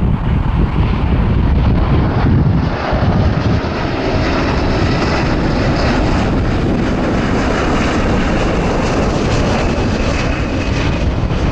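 Rolls-Royce Trent XWB turbofans of a British Airways Airbus A350-1000 on final approach with gear down, passing low overhead: a loud, steady jet rumble, with a thin high fan whine coming in about halfway through.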